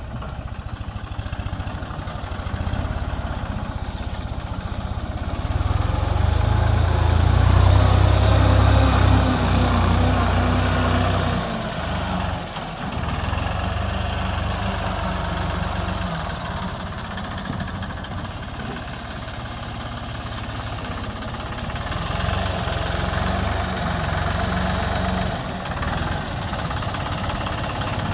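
Turbo-diesel engine of a Gold Power 260 4x4 tractor running under load as it pulls a rear-mounted trencher through soil. The engine note swells louder from about five seconds in, dips briefly near the middle, then runs on steadily.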